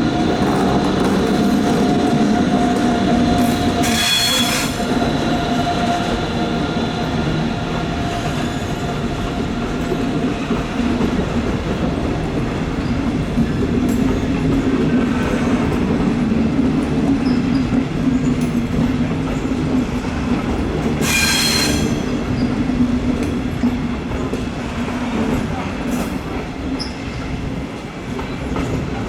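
A train rolling through a tight curve, its wheels giving a steady low rumble, with two short high-pitched squeals about four seconds in and again about twenty-one seconds in. The squeal is the wheel flanges grinding against the rail in the curve.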